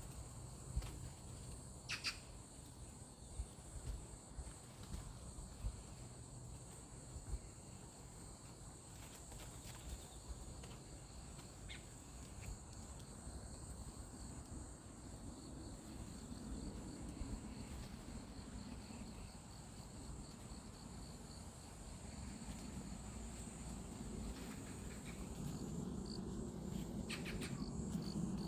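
Steady, high-pitched trilling of insects in outdoor ambience, with a few soft clicks and a low rumble that grows toward the end.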